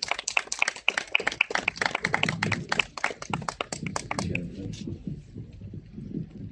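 A small crowd clapping, the claps thinning out and stopping about four seconds in, then a low, uneven rumble.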